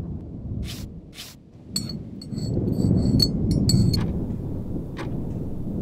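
A run of light clinks with a short high ring, bunched between about two and four seconds in, with a few single clicks before and after, over a steady low rumble.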